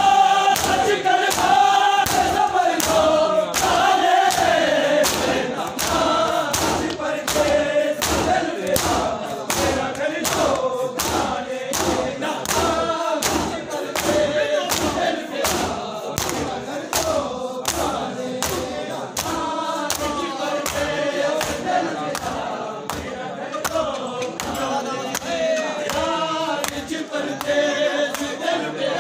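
Many men chanting a mourning chant together while doing matam, striking their bare chests with open hands in a steady beat.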